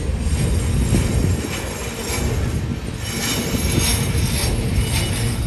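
Empty freight flatcars rolling past on the rails with a steady low rumble. From about a second and a half in comes a run of sharp, high metallic clatters.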